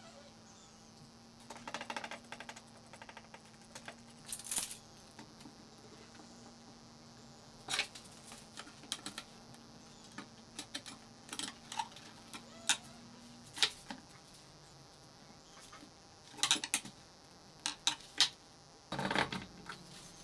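Steel F-clamps and glued plywood strips handled on a workbench: scattered light clicks, knocks and metallic rattles as the clamps are slid along their bars and tightened onto a laminated plywood stack, with a denser run of clatter near the end.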